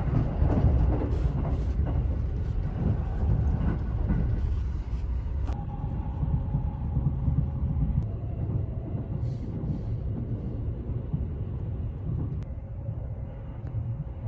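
A JR West 281 series Haruka limited express running along the line: a steady low rumble of wheels on rails. About five seconds in, the higher hiss drops away abruptly and the rumble goes on a little quieter.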